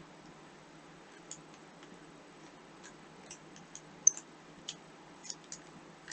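Rubik's Cube being turned by hand: scattered, irregular plastic clicks of the layers snapping round, the sharpest about four seconds in, over a faint steady hum.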